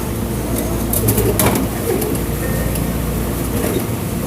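Drink vending machine running as it vends a bottle, with one clunk about a second and a half in over a steady low hum.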